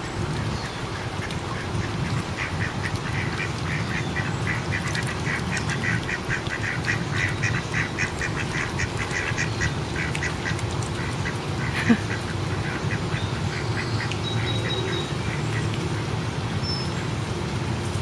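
Ducks calling: a fast, even run of quacks lasting about eight seconds, over a steady low background hum. A single sharp knock comes about twelve seconds in.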